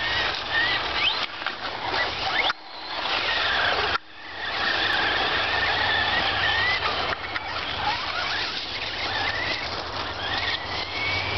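Radio-controlled crawler truck's motor and drivetrain whining as it claws up a loose gravel-and-dirt mound, the whine rising and falling with the throttle over tyre scrabble in the gravel. It cuts out briefly about two and a half seconds in, then picks up again.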